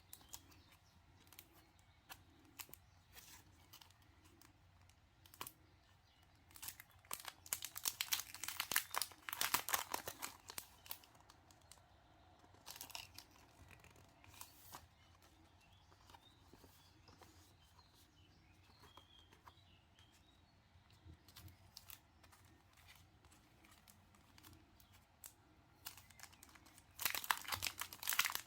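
Packaging crinkling and tearing as a haul parcel is unwrapped, in two main bursts, one about a quarter of the way in and one near the end, with scattered small rustles between. Faint bird chirps come through an open window.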